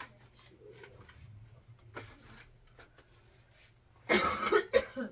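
Faint clicks of small items handled on a shelf, then a woman coughs, a loud rough cough about four seconds in followed by a second shorter one.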